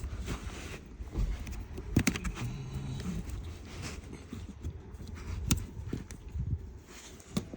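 A few sharp clicks and knocks as parts are fitted back onto a pickup truck's passenger seat, about a second or more apart and getting closer together near the end.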